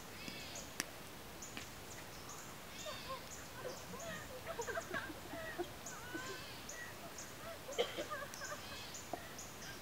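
Faint open-air ambience: a high chirp repeating a couple of times a second, with scattered bird calls and a few sharp clicks.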